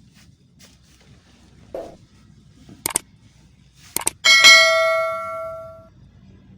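A few light clicks and knocks, then a metal object struck once, ringing with several tones that fade out over about a second and a half.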